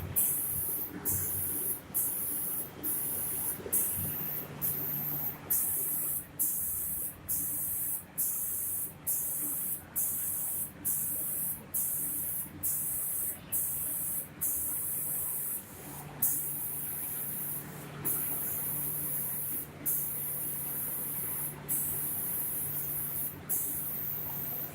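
Automatic door spraying machine's spray guns hissing in short, regular on-off bursts, about three every two seconds, changing to longer bursts of a second or two after about sixteen seconds. A steady low machine hum runs underneath.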